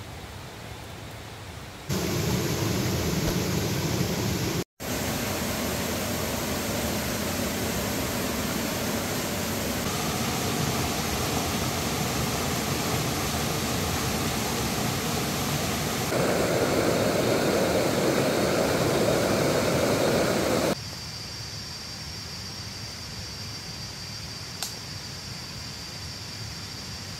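Forest stream rushing over rocks: a steady, loud noise of flowing water, cut into several stretches of differing loudness. Near the end it drops to a quieter background with a steady high thin tone.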